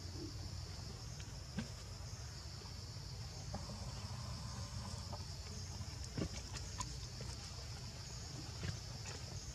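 Outdoor forest ambience: a steady high-pitched insect drone over a low rumble, broken by a few short sharp sounds, the plainest about one and a half seconds in, six seconds in and near the end.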